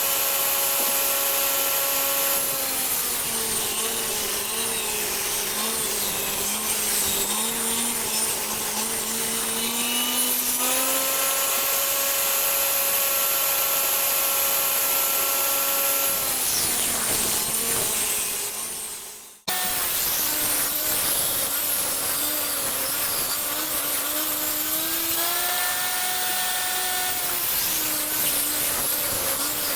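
Electric power tool motor running steadily, its whine dropping in pitch for several seconds at a time as it works under load and rising again when freed. About two-thirds through it dies away and then starts up again abruptly.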